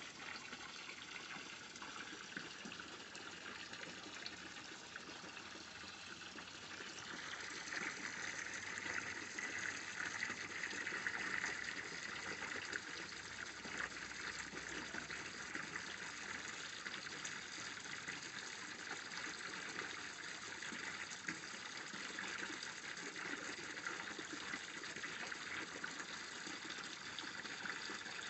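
Water running and splashing steadily into an aquaponics fish tank, growing louder about seven seconds in.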